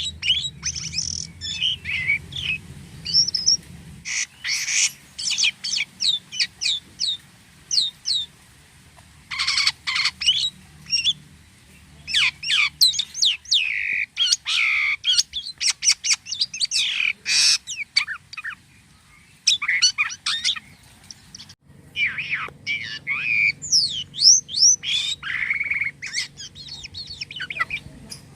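A jalak kapas starling singing at length: rapid chirps, whistled notes and sweeping glides strung together with odd, varied calls, pausing briefly about three quarters of the way through.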